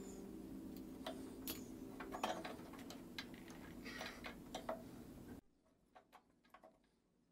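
Scattered light clicks and taps of long needle-nose pliers and metal hose clamps as the fuel pump vacuum hose is worked loose in an Onan B43G engine bay. They sound over a steady low hum that cuts off suddenly about five seconds in, leaving fainter clicks.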